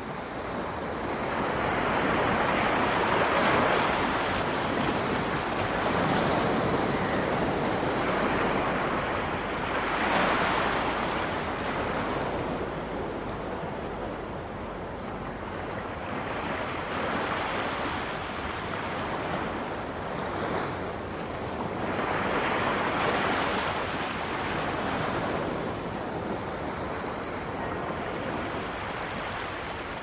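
Sea waves washing onto a shore: a steady hiss of surf that swells every five to seven seconds as each wave breaks. It rises in over the first couple of seconds.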